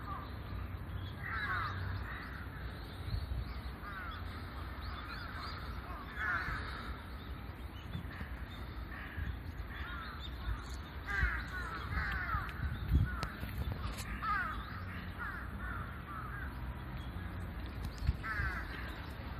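Crows cawing again and again, in short runs of calls every second or two, over a steady low rumble.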